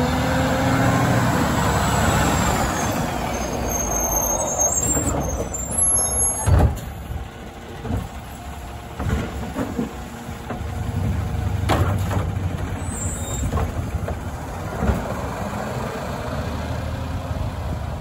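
Autocar ACX Labrie Automizer side-loader garbage truck driving slowly past on a snowy street. Its diesel engine runs steadily, and a high whine falls in pitch over the first few seconds. About six and a half seconds in there is a loud knock, followed by several more clunks from the truck's body and arm. The engine note rises again as the truck pulls away.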